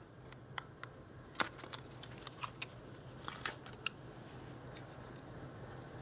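Small cardboard and plastic packaging being handled as remote controls are unpacked: scattered light clicks and taps, one louder click about a second and a half in, over a faint steady low hum.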